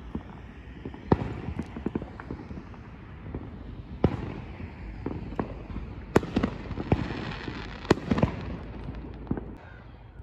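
Fireworks going off on several sides: sharp bangs at irregular intervals, some loud and others faint, with the loudest about six and eight seconds in and a denser run of small crackling pops between them.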